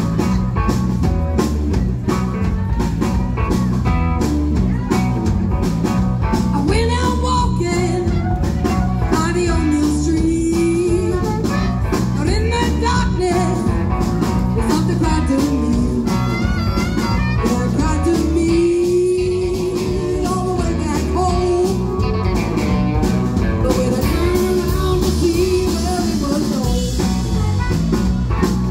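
Live blues band playing: electric guitar, bass guitar and drum kit, with an amplified harmonica and a woman singing in places.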